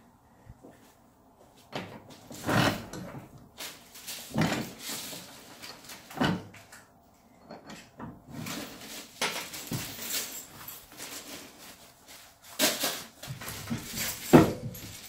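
A series of irregular knocks and clunks, several of them loud, coming about every one to two seconds with short quiet gaps.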